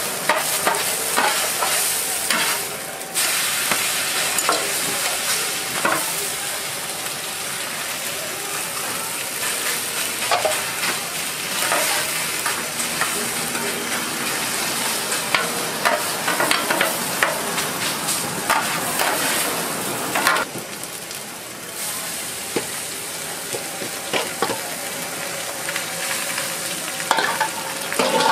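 Korean green-onion and seafood pancake batter frying on a flat steel griddle, a steady sizzle under repeated clacks and scrapes of large metal spatulas chopping and pressing the scallions against the griddle.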